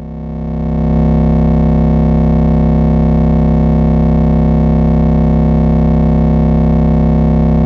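Eurorack modular synthesizer oscillator holding one steady low drone rich in harmonics: a triangle wave passed through a wave folder, with the bit crusher, filter and distortion bypassed. It grows louder over the first second, then holds level.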